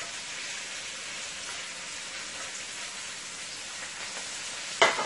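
Vegetables sizzling steadily in hot oil in a pot, a fine even hiss. Near the end, a few sharp, loud knocks and scrapes as a wooden spoon starts tossing them in the pot.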